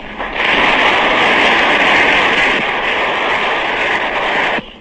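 Congress audience applauding, a dense burst of clapping that starts shortly in and cuts off abruptly near the end, on an old 1930s recording.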